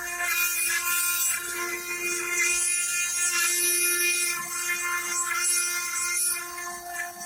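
CNC stone-engraving machine's spindle running with a steady whine while the bit cuts stone, with a gritty hiss that swells and fades as it carves.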